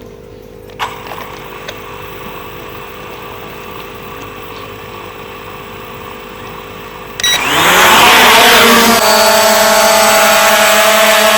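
Quadcopter drone's brushless motors spinning up about seven seconds in: a sudden start, rising in pitch, then a loud steady propeller whine. Before that, a quieter steady hum with a single click about a second in.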